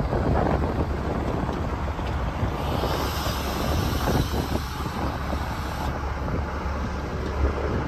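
Diesel semi tractor with an end-dump trailer running as it drives slowly past close by, over the steady low rumble of heavy equipment at a dig site, with wind buffeting the microphone. A high hiss comes in from about two and a half to six seconds in.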